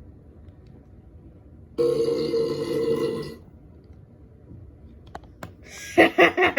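A person burping: one long, deep, loud burp lasting about a second and a half, a couple of seconds in. Near the end comes a short, rapidly pulsing burst of voice.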